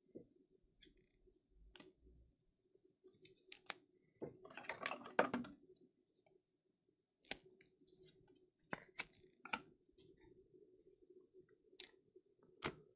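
Trading cards and card holders being handled on a tabletop: scattered soft clicks and taps, with a short burst of rustling about four to five seconds in.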